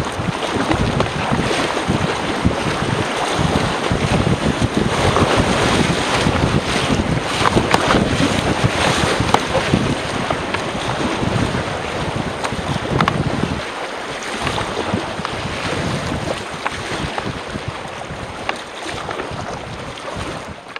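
River water rushing and splashing around a packraft running a shallow riffle, with wind buffeting the microphone and occasional paddle splashes. The water noise eases somewhat in the second half as the river calms.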